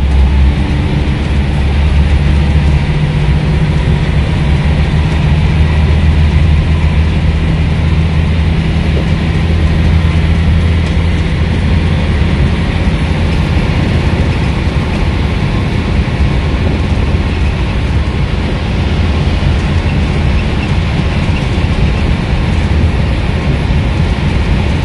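Scania N230UB bus's diesel engine pulling and then settling to a steady cruise, heard from inside the passenger saloon with road and tyre noise. The engine's droning tone is strongest in the first half and fades into an even rumble of road noise.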